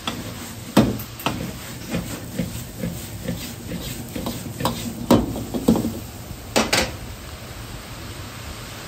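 Metal ladle clanking and scraping against a wok as pork and garlic chive stems are stir-fried and tossed, irregular knocks over a steady hiss of the gas wok burner and the sizzling food. The clanks stop about seven seconds in, leaving the hiss.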